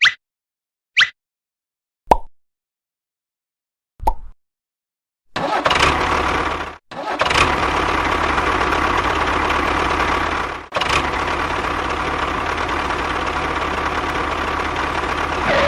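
A few short pops, then the running sound of a mini tractor's engine that starts about five seconds in and cuts out briefly twice before carrying on steadily.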